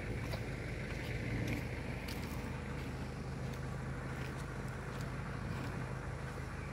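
A steady low motor hum, with a few faint short ticks scattered through it.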